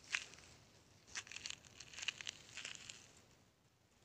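A few faint, short crunching scrapes of footsteps on dry, gritty dirt, spread over the first three seconds.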